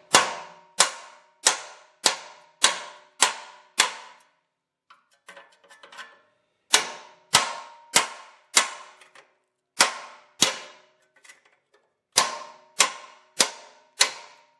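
Hammer blows on a small steel chisel wedged into the seam between a rear wheel hub and the axle, working the seized hub loose. There are three runs of quick ringing metal strikes, about one and a half to two a second, with short pauses and a few light taps between them.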